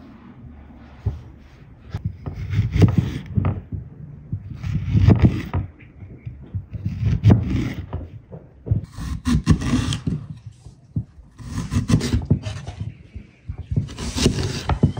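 A large kitchen knife cutting through a firm quince into a wooden cutting board: a slow series of crunchy slicing cuts, about one every two seconds, each ending in a knock of the blade on the board.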